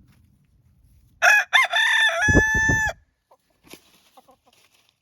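An Araucana rooster crowing once, a loud cock-a-doodle-doo lasting under two seconds that ends in a long held note.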